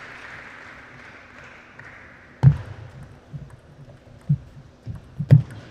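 Celluloid-type table tennis ball being served and rallied: sharp clicks as it strikes the rackets and bounces on the table. The first comes about two and a half seconds in, then a quick, uneven run of hits follows, the loudest near the end.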